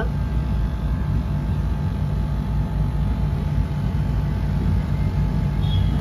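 Split air conditioner outdoor unit running, its compressor and condenser fan giving a steady low hum, while the refrigerant is being pumped down into the outdoor unit.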